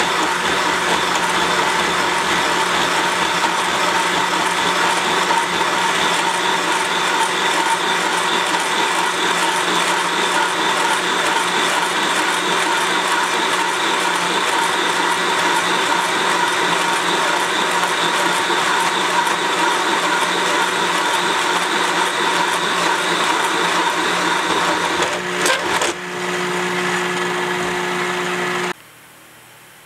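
A valve seat and guide machine runs steadily while its seat cutter bores the pocket for a new press-fit exhaust valve seat in a cast-iron AMC 360 cylinder head. About 25 seconds in the sound changes with a few clicks as the cut finishes, and the machine shuts off shortly before the end.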